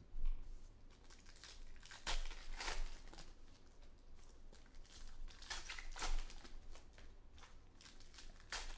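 Plastic trading-card pack wrappers crinkling and tearing as packs of baseball cards are handled and opened, in a run of irregular rustling strokes.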